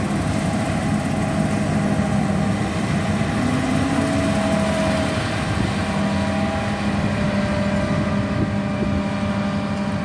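John Deere combine harvester working through standing wheat, its engine and machinery running with a steady drone and a held low hum.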